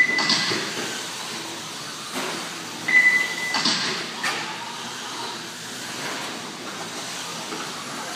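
Electric RC cars running on an indoor dirt track, a steady hiss of motors and tyres with a surge of noise as cars pass about three and a half seconds in. A short high electronic beep sounds at the very start and again about three seconds in.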